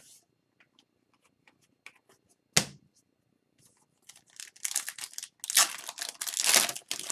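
A single sharp knock about two and a half seconds in, then a foil hockey card pack wrapper crinkling and tearing open over the last three seconds.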